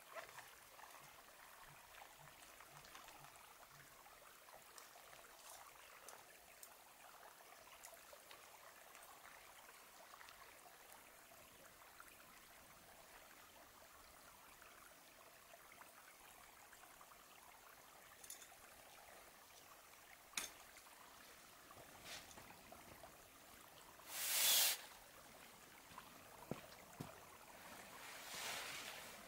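Faint steady rushing hiss, like distant running water, with a few faint clicks. There is a brief louder rush about 24 seconds in, and nylon fabric rustles near the end as a hammock tarp or quilt is handled.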